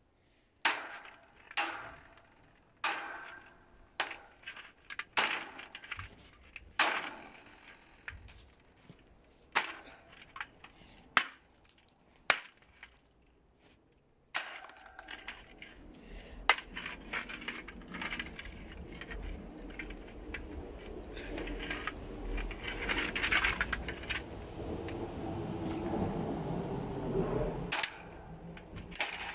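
A series of sharp knocks and cracks, about one every second or two. About halfway in, a stand fan's motor starts running with a low hum and a rattling noise that builds, then cuts off shortly before the end.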